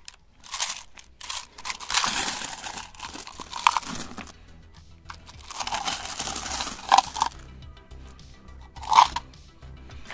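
Metal coins clinking and sliding in several bursts as they are tipped out of a mug onto a padded motorcycle seat and swept together and scooped by hand. Background music plays underneath.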